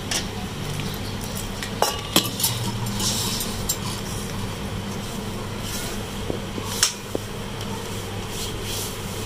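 Hands rubbing oil into dry flour in a stainless steel bowl, a steady rustling and scraping, with a few sharp knocks against the steel bowl about two seconds in and again near seven seconds.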